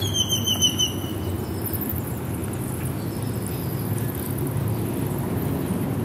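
Steady low rumble of city traffic, with a thin, wavering high squeal during the first second and a half.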